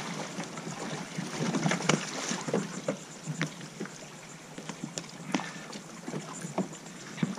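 Pool water splashing and sloshing as a swimmer hauls himself out of the water onto a Jackson Coosa FD sit-on-top fishing kayak, with scattered knocks and bumps of his body against the plastic hull and deck.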